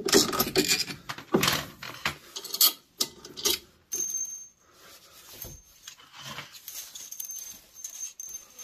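Small loose metal screws clinking and rattling in a hand, with knocks from handling the tool and the washer's stator; the clicks are thickest in the first half. A faint high whine comes and goes in the second half.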